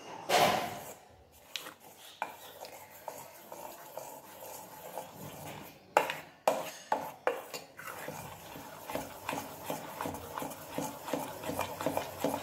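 Fingers stirring and squelching a thick gram-flour and semolina batter in a stainless steel bowl. There is a louder slosh just after the start and a few sharp clicks against the bowl around the middle.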